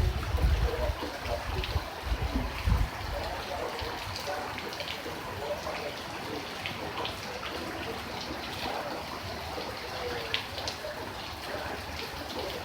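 Rain falling, a steady wash of water with scattered drops tapping, and a few low rumbles in the first three seconds.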